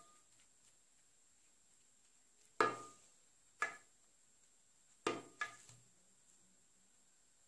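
Four short clinks with a brief ring, spaced unevenly over a few seconds: a silicone basting brush knocking against the dishes while egg yolk is brushed on.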